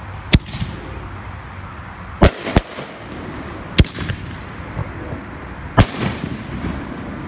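Multi-break aerial ball shell going off: its launch and breaks give five sharp bangs over about six seconds, two of them close together about two seconds in.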